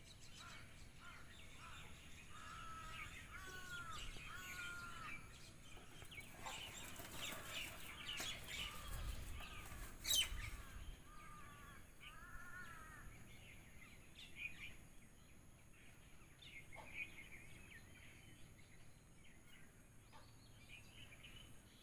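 Faint calls of wild birds: runs of short arched chirps repeated in quick series, with scattered chirps between them. A single sharp click, the loudest sound, comes about halfway through.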